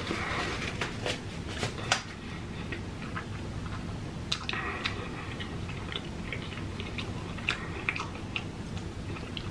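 Close-miked chewing of a mouthful of food: scattered wet mouth smacks and clicks. Near the start, a brief rustle of a napkin wiped across the mouth.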